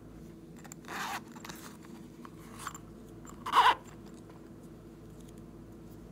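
Small plastic cosmetic containers being handled by hand: a short scrape about a second in and a louder scrape about three and a half seconds in, with a faint click between.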